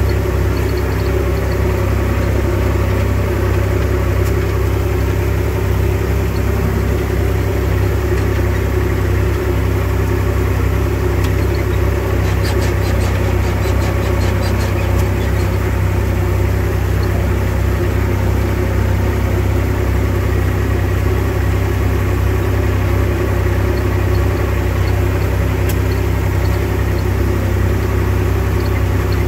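IMT 539 tractor's three-cylinder diesel engine running steadily, heard from inside the cab.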